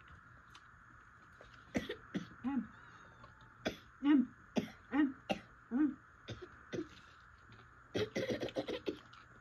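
A person coughing: a string of short separate coughs with throat-clearing, followed by a quicker run of short bursts near the end.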